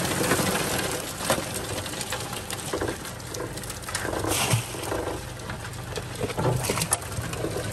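Live crawfish scrabbling in a metal sorting tray: a dense run of small clicks and scratches from their shells and legs on the metal. Under it, a boat motor runs low and steady.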